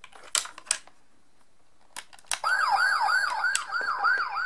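A few sharp plastic clicks as the VTech Toot-Toot Drivers fire engine book is handled and pressed. Then the book's electronic fire engine siren sound effect plays from its small speaker: a fast siren sweeping up and down about three times a second, starting about two and a half seconds in.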